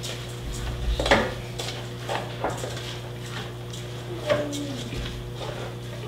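A metal spoon clinking and scraping against a stainless steel saucepan as rice is stirred into a sauce. The knocks come irregularly, the loudest about a second in and again a little after four seconds.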